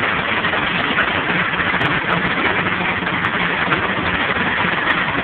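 Heavy hail falling on a paved street, a dense, steady rush of small impacts. A vehicle engine idles underneath as a low hum.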